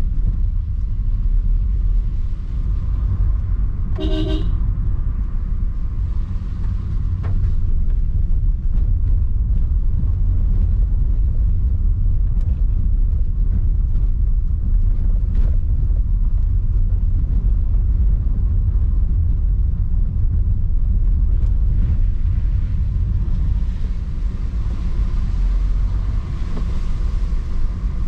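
Steady low road and engine rumble heard inside a Suzuki car's cabin as it drives. A car horn toots once, briefly, about four seconds in.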